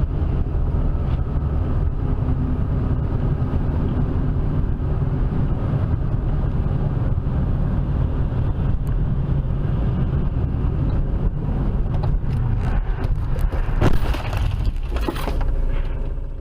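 Steady low rumble of a car driving. In the last few seconds come a series of sharp knocks and clatter, the loudest about fourteen seconds in.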